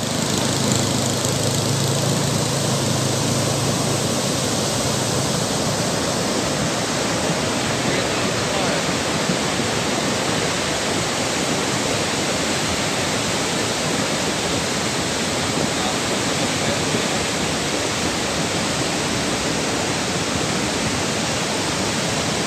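Lahar, a volcanic mudflow of water, ash and rock, rushing down a river channel: a steady rushing noise, with a low hum underneath for the first five seconds or so.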